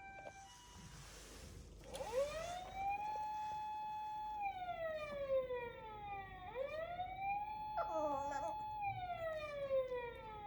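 Siren sound played through a mobile phone's speaker: starting about two seconds in, it rises to a held tone and slowly falls, twice. About eight seconds in, a Chihuahua-Pekingese mix dog joins briefly with a short wavering howl over it.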